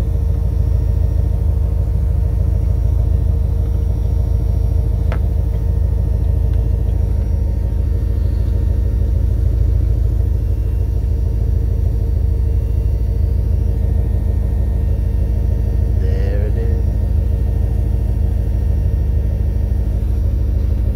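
Jaguar XF's engine idling steadily: a low, even rumble with a constant hum above it.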